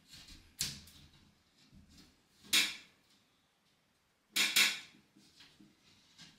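Brief scraping, rustling handling noises from hand work on a plasterboard ceiling patch: one about half a second in, a louder one about two and a half seconds in, and a quick double one about four and a half seconds in.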